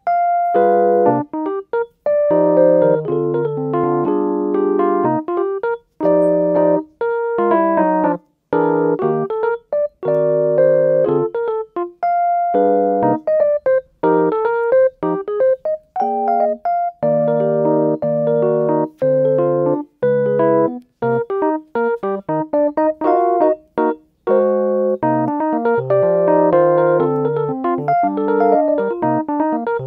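Background music: a gentle piano-like keyboard tune of short notes and chords, broken by frequent brief gaps of silence.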